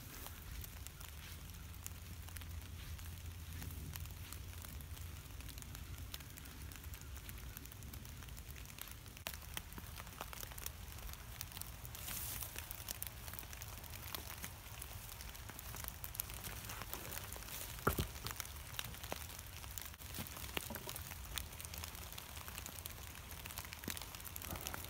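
Light rain falling, a soft steady patter with scattered drips tapping, and one sharper tap about three-quarters of the way through.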